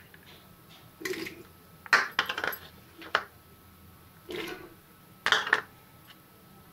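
Chopped vegetables being tipped from bowls into a pressure cooker pot: the bowls and a spoon clink and scrape against the pot's rim as the pieces drop in, in about five short bursts, the loudest about two seconds in.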